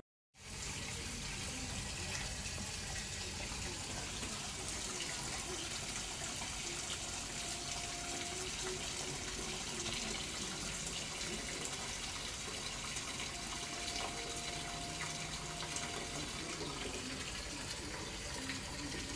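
Kitchen tap running steadily into a stainless-steel sink, the water splashing onto the malt extract cans standing in it.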